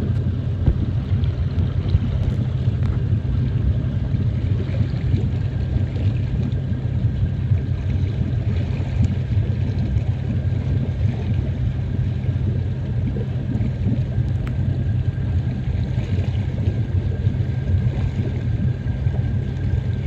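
A steady low rumble, with a faint thin whine joining about two-thirds of the way through.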